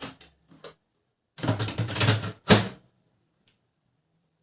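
A toner cartridge being fitted into a Canon LBP 2900 laser printer: a few light plastic clicks, a scraping clatter, then a sharp plastic snap about two and a half seconds in.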